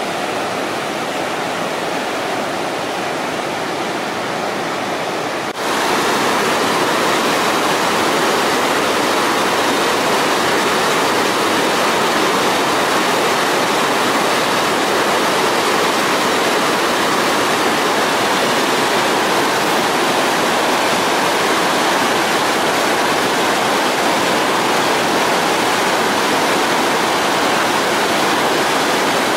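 Salmon River whitewater rapid: a steady, loud rush of churning water pouring around boulders. About five and a half seconds in it suddenly gets louder and brighter, then runs on steady.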